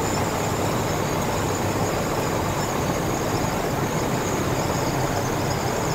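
Steady in-cab drive noise of a 1968 International Harvester 1100D pickup under way at road speed: its 345 V8 running with a low hum under even road and tyre noise.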